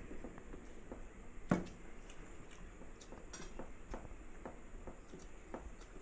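Eating at a table with steel plates: scattered small clicks and taps of fingers and food against the plates, with one louder knock about a second and a half in.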